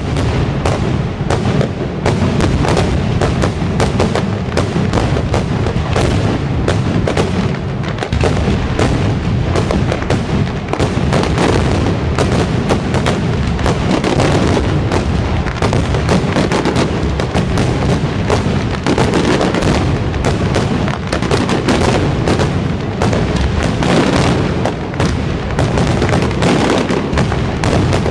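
Aerial fireworks display: a dense, continuous barrage of cracks and booms, many bangs a second, that starts abruptly and does not let up.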